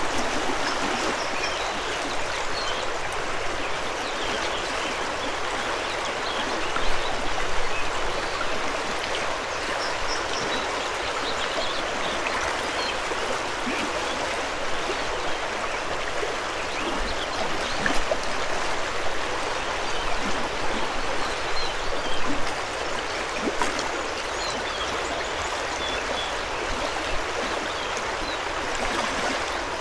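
A fast mountain river rushing over rocks as a steady, dense wash, swelling a little a few times.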